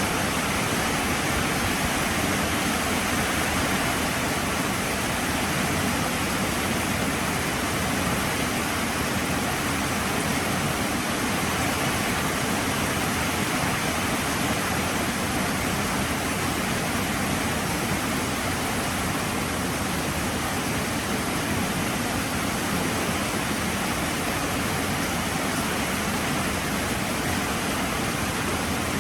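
Heavy rain pouring steadily, a dense even hiss without breaks or single drops standing out.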